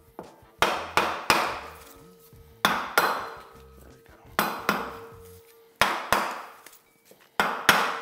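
Mallet taps on the aluminium cylinder casting of a Honda CB350 twin, struck to break the cylinder loose from the crankcase. The sharp knocks come in quick pairs about every one and a half seconds, each with a short metallic ring.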